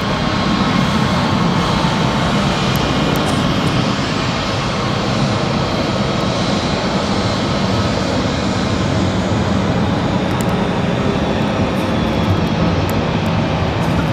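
Jet engines of a Boeing C-32A running steadily as the aircraft rolls along the ground, a loud even noise with a faint steady whine in it.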